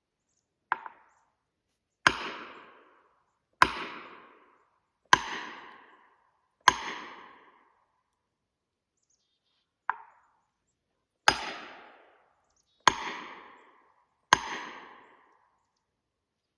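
Steel felling wedges being hammered into a tree's back cut, metal on metal with a ringing after each blow: a light setting tap, four heavy strikes about a second and a half apart, a pause, another tap, then three more strikes. The wedges are being driven to lift a spruce over against its hard lean.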